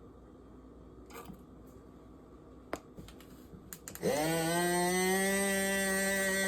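A few light clicks and handling noises, then a small electric motor starts with a brief rise in pitch. It runs with a steady whirring hum for about two and a half seconds and cuts off suddenly.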